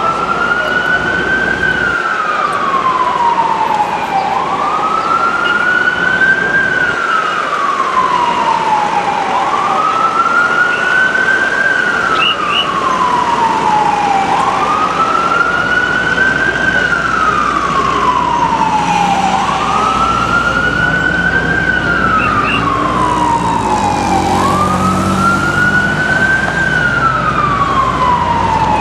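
Ambulance siren sounding its slow wail: the pitch rises quickly, then falls slowly back, about once every five seconds. A lower rumbling sound joins beneath it about two-thirds of the way through.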